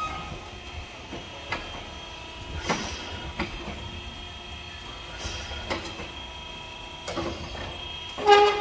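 Irregular metal knocks and clanks from tire-changing work on a large OTR tire and steel rim, about eight in all, with a faint steady hum underneath. The loudest clank, near the end, rings briefly with a squealing tone.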